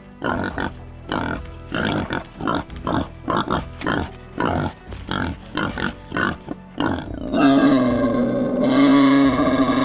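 Wild boar giving a quick run of short grunts, then about seven seconds in breaking into long, loud squeals.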